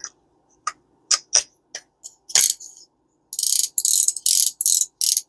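Small metal parts of a Garcia Mitchell 410 spinning reel clicking as they are handled: a few separate sharp clicks, then about two-thirds of the way in a quick run of short rasping, ratchet-like clicks.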